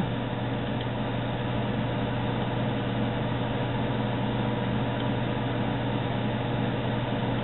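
Steady hum and fan noise from running computer equipment: a strong low electrical hum with a few faint steady higher tones over an even hiss.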